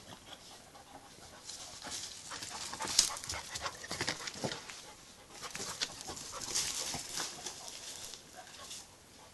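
A jagdterrier puppy and a larger shaggy dog play-fighting on gravel: irregular scuffling of paws and bodies on the ground, with panting. There is a single sharp knock about three seconds in.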